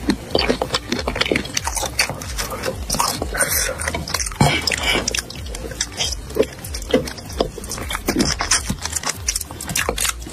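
Close-miked eating of chicken feet in spicy sauce: wet chewing and biting, with many quick, irregular mouth clicks.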